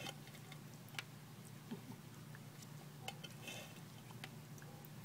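A tortoise biting and chewing a cherry tomato: scattered soft clicks and crunches from its beak, about one every second, over a faint steady low hum.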